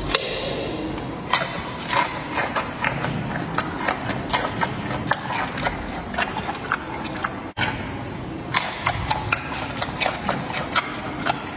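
Giant panda chewing carrot with its mouth open, giving irregular crisp crunches several times a second. There is a momentary break about seven and a half seconds in.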